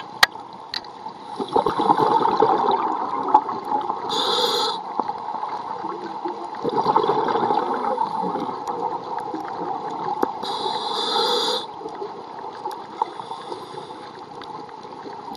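A scuba diver's regulator heard underwater: exhaled bubbles gurgling, then a short inhalation hiss, twice over, above a steady background hum.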